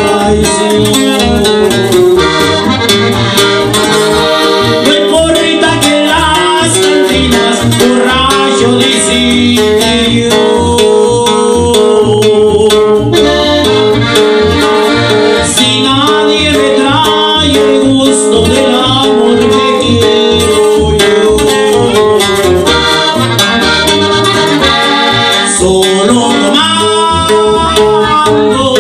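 Live norteño band playing a parrandero number: a button accordion carries the melody over the strummed bajo sexto and an electric bass keeping a steady beat.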